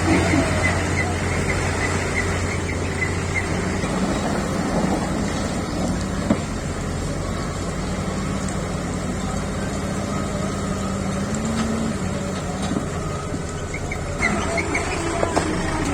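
Diesel engine of a JCB backhoe loader running steadily with a low drone and a whine that rises slightly about eleven seconds in, and a single sharp knock about six seconds in.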